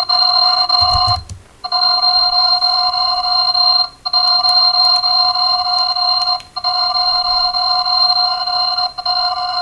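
An alarm sound effect with a ringing, bell-like tone of several steady pitches sounding together. It comes in long stretches of about two and a half seconds, broken by short gaps.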